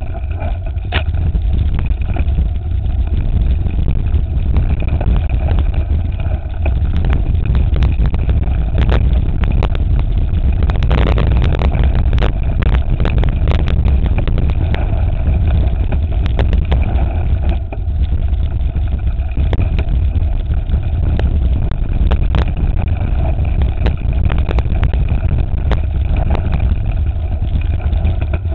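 Mountain bike riding a rocky dirt trail: heavy wind rumble on the microphone, with tyre noise and frequent rattles and knocks as the bike runs over stones.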